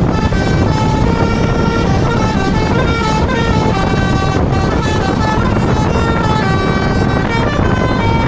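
Basuri V3 'telolet' multi-tone bus horn playing a long melody of short notes that step up and down in pitch, over a low rumble from the bus.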